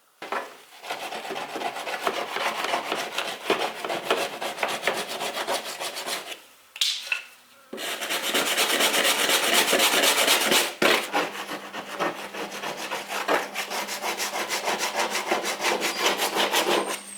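Rapid scraping strokes as stuck grass is cleaned off the underside of a Ryobi electric lawnmower's deck, in two long spells with a short break about six to seven seconds in.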